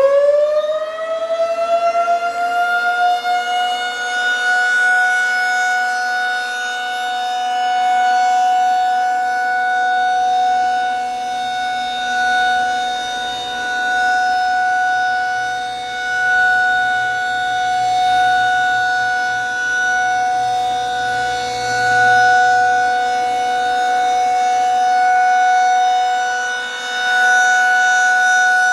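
Outdoor warning siren sounding its scheduled test: it finishes winding up to full pitch in the first few seconds, then holds a steady, loud two-note wail whose loudness swells and dips every several seconds.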